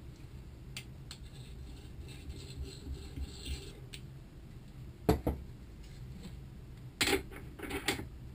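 Sharp knocks and clatter from hand work on a gearbox part clamped in a bench vise. One loud knock comes about five seconds in and two shorter bursts of knocking follow near the end, with small clicks and scraping of metal parts before them.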